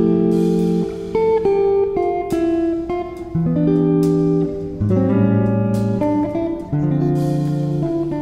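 Background music: a guitar-led track of plucked and strummed notes.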